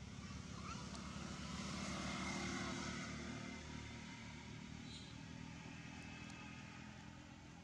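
Distant engine hum of something passing by. It swells to a peak about two and a half seconds in, then fades away.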